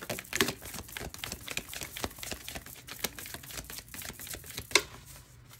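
Oracle cards being shuffled by hand: a dense run of soft clicks and card-on-card rustling, with one sharper snap near the end.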